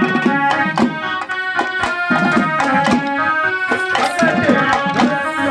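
Traditional folk music: drums beating a steady rhythm of about four strokes a second under a melody instrument playing held notes.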